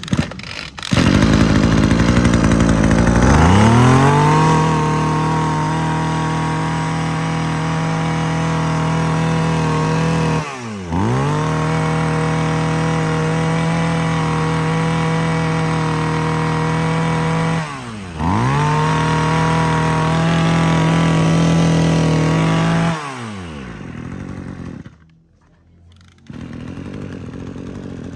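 Kawasaki TZ27 brush cutter's 27cc two-stroke engine starting and running at high revs held steady. The throttle is eased off twice and the engine picks straight back up each time. About three-quarters of the way through, the revs fall away and the engine quietens.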